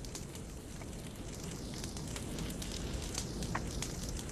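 A burning wooden house: the fire makes a steady low rushing noise, with frequent sharp crackles and pops of burning timber.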